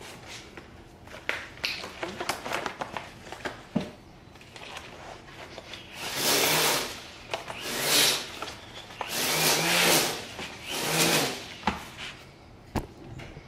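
A leather ball glove being closed around a wooden block, with small knocks, clicks and rustles. Then four loud rasping sounds of about a second each, each with a low buzz under it.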